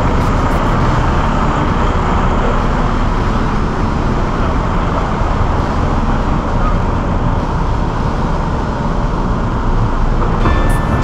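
Steady road traffic noise: a constant low rumble and hiss with no breaks.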